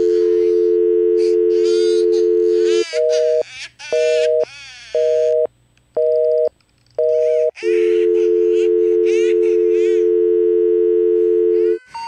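A North American telephone dial tone hums steadily. About three seconds in it breaks into a busy signal, five beeps at one a second, and the dial tone returns at about eight seconds. A person is crying and wailing over the tones.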